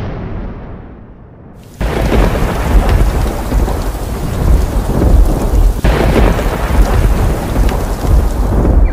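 Thunderstorm: a low rumble of thunder at the start fades away, then about two seconds in a sudden clap of thunder breaks into heavy rain and rolling thunder. A second thunderclap comes about six seconds in.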